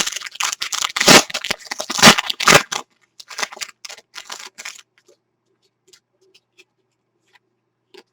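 Foil trading-card pack wrapper being torn open and crinkled: loud crackly tearing for the first three seconds, a softer burst around four seconds in, then only a few faint clicks.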